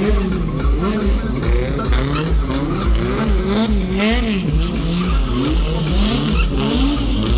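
Two drift cars sliding in tandem, their engines revving up and down about twice a second as the throttle is worked, over the screech of skidding tyres.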